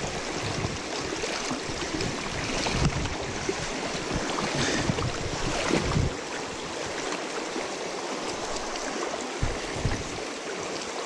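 Fast-flowing river current rushing steadily over rocks. Low gusts of wind buffet the microphone during the first half.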